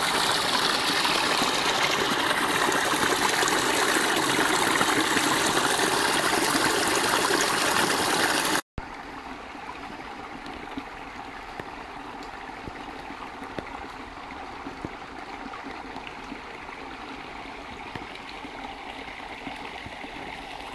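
Small brook splashing over a little cascade of stones; about nine seconds in it cuts off abruptly to the quieter, steady flow of a calmer stretch of the stream.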